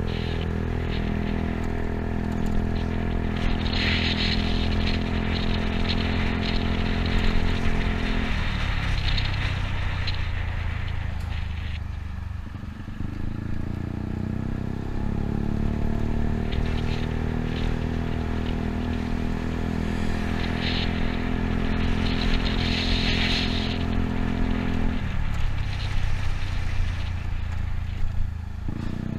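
Yamaha Cygnus scooter's engine running under way, with wind and road noise from riding along city streets. The engine note drops away twice, about a third of the way in and again near the end, and then picks up again.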